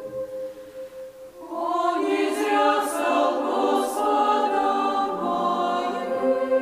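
Women's choir singing a phrase of a Russian hymn: after a brief lull, the voices come back in about a second and a half in with sung words and settle onto a held chord near the end.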